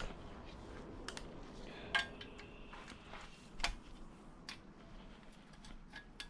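Hand tools and loose bolts clinking against metal while a guard is unbolted from the underside of a Nissan VQ37VHR engine block: scattered sharp clinks, the loudest about two seconds in and again near the middle, with a short metallic ring after the first.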